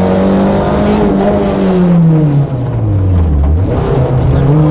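Renault Clio Williams rally car's 2.0-litre four-cylinder engine heard from inside the car at speed: the revs hold high, then fall away over about two seconds as the driver eases off for a bend, and climb quickly again near the end as it accelerates out.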